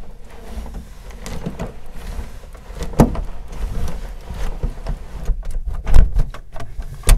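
Sliding cockpit canopy of a Titan T-51 being cranked shut by hand through its chain mechanism: a string of irregular clicks and rattles, with louder knocks about three and six seconds in and a sharp click near the end.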